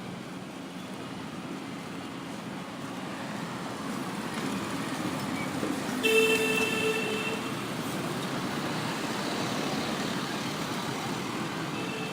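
Road traffic passing, its noise swelling over several seconds as vehicles approach. About six seconds in, a vehicle horn sounds once for about a second and a half, the loudest thing here, before the steady traffic continues.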